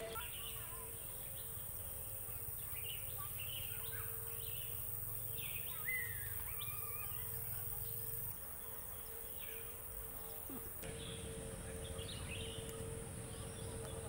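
Tropical forest ambience: many small birds chirping and trilling over a steady drone of insects, with low wind rumble, changing abruptly about eight and eleven seconds in.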